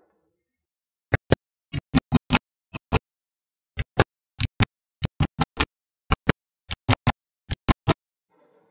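Magnetic balls clicking as small blocks of them snap onto a magnet-ball wall. About twenty sharp clicks come mostly in quick pairs and runs, with silence between.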